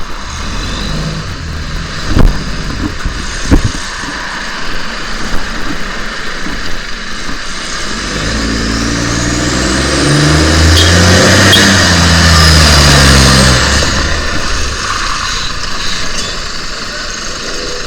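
Bus with an exhaust leak driving past: its engine note builds, is loudest about halfway through, then falls in pitch as it goes away, with a high whine over it. Two sharp knocks come in the first few seconds.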